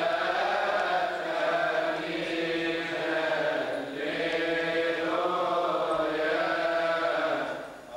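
Coptic Orthodox liturgical chant sung in long drawn-out phrases, with a brief break about halfway through and another near the end.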